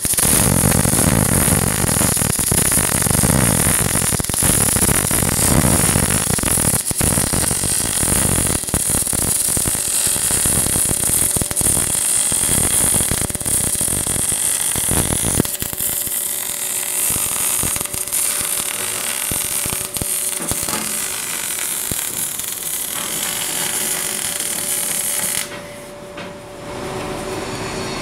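MAG (gas-metal arc) welding arc burning on a steel pipe joint: a steady hiss with many sharp crackles of spatter. The arc cuts off abruptly about 25 seconds in, leaving a steady hum.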